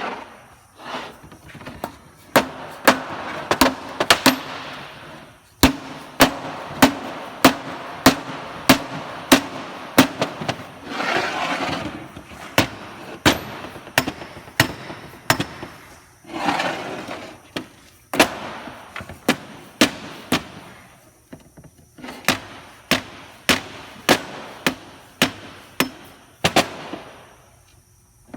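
Repeated sharp hammer blows on metal, about one and a half to two a second, in runs broken by short pauses, each blow leaving a brief ring. A rough scraping noise fills some of the gaps between runs.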